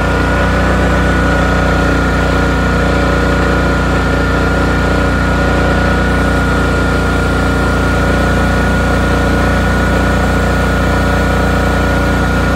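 Honda EU7000iS fuel-injected inverter generator's single-cylinder engine running steadily under full overload, at about 7,500 watts with its overload alarm on, just short of the breaker tripping. A steady high-pitched whine sits over the engine's hum.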